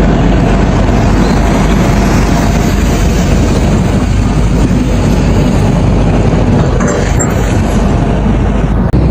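Excavator diesel engine running steadily and loudly.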